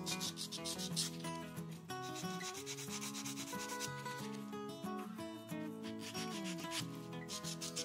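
A white foam nail buffer block rubbed in quick back-and-forth strokes over a fingernail, lightly roughening the clear dip-powder coat so gel polish will grip. Background music plays under it.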